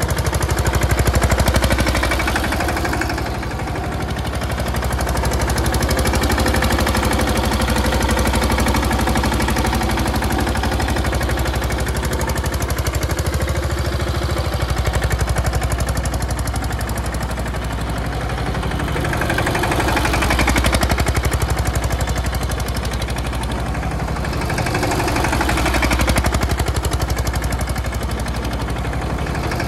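Mahindra Yuvraj 215 tractor's single-cylinder diesel engine running with a rapid, even knocking beat, its loudness swelling and easing every five seconds or so.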